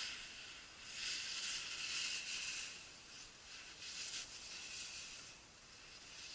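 Skis scraping across firm snow: a hiss that swells and fades several times, as with turns.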